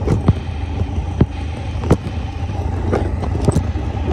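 Sharp knocks and clicks of a phone being settled against a concrete step, over a steady low rumble.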